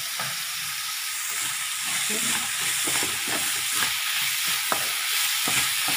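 Diced carrots, beans and onion sizzling in oil in a frying pan as they sauté, stirred with a wooden spatula that scrapes and knocks against the pan in quick, irregular strokes.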